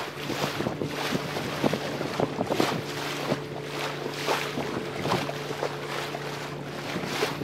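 Lake water splashing and slapping against the bow of a Lancer 25 sailboat under sail in a moderate breeze, in quick irregular splashes over a steady rush of wind on the microphone. A faint steady hum runs underneath.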